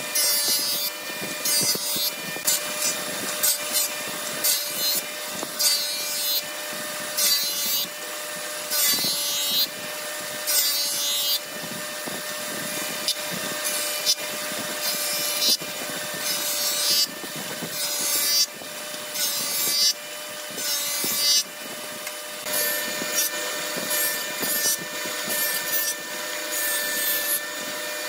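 Woodworking jointer running with a steady machine hum, its cutterhead biting in short, loud cutting bursts about once a second as curved wooden chair parts are pushed across it.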